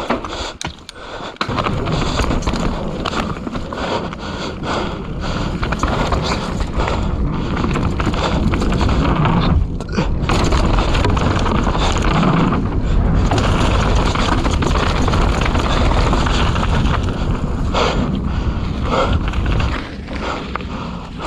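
Mountain bike descending a wet dirt trail at speed: a continuous rush of wind over the microphone and tyre noise, with frequent knocks and rattles from the bike over bumps.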